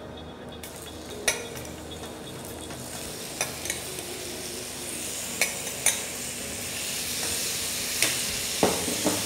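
Pineapple chunks spooned into a hot copper pan of butter and cane sugar, sizzling louder as more pieces go in. A metal spoon clinks sharply several times against the glass bowl and the pan.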